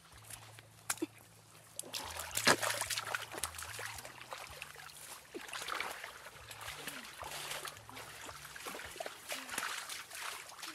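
Footsteps and bodies brushing through leafy forest undergrowth: leaves and stems rustling and crackling, continuous from about two seconds in.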